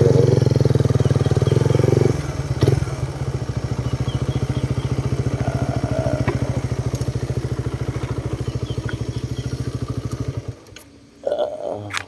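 Motorcycle engine running with a rapid, even pulse, louder for about the first two seconds, then idling steadily until it is switched off and cuts out suddenly about ten seconds in.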